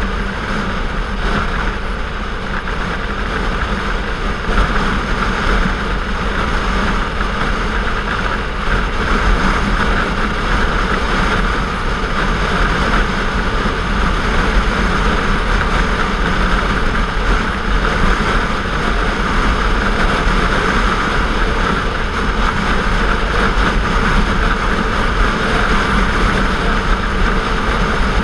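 Sport motorcycle cruising at highway speed: its engine runs with a steady low hum under a constant rush of wind and road noise.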